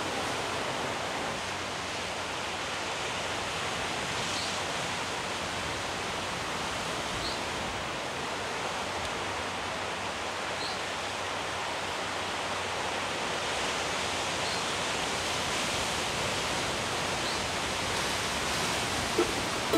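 Steady rushing ambient noise, even and unbroken, with faint short high chirps every few seconds.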